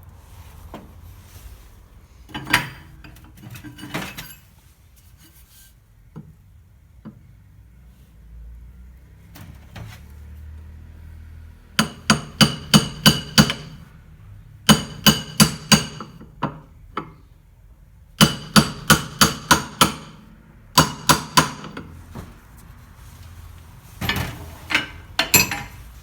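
Hammer tapping a 6802 ball bearing into its seat in a washing-machine transmission, metal on metal with a ringing tone. Two single blows come in the first few seconds, then several quick runs of strikes at about four a second.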